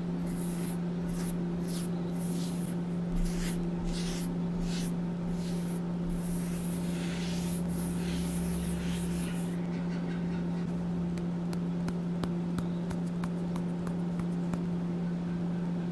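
Bristle paintbrush swishing through powdered gym chalk on a stone mortar, in soft strokes about twice a second. The strokes stop a little over halfway through, leaving only faint light ticks. A steady low hum runs underneath.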